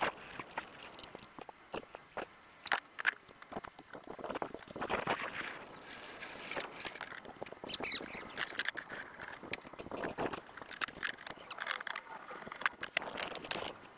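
Scattered clicks, knocks and rustles of hands handling the plastic tub and steel frame of a Gorilla Carts poly dump cart during assembly, with a brief sharper rustle about eight seconds in.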